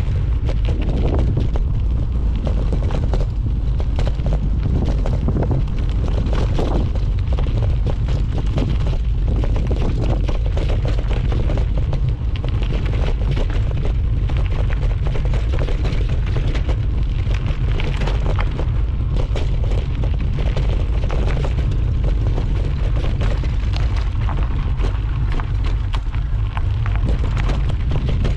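Wind buffeting the microphone with a steady deep rumble, over the constant rattling and clattering of a mountain bike riding down a rough trail.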